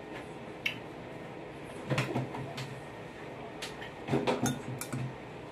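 A few separate knocks and clatters, the loudest about two seconds in and again around four seconds in, as a person sits back down at a table and handles a bowl and chopsticks.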